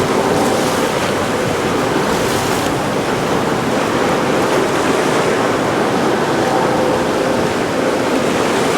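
Coast Guard helicopter hovering low over the water: a steady, loud rush of rotor and engine noise with a faint steady hum, mixed with wind buffeting the microphone.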